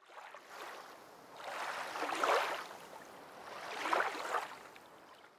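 Rushing, whooshing sound effect that swells and fades twice, about two seconds apart.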